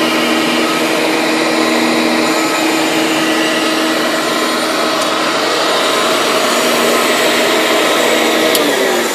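The motor of a Clarke CarpetMaster 576A industrial carpet cleaner running with a steady whine. Near the end it is switched off, and the pitch falls as it winds down.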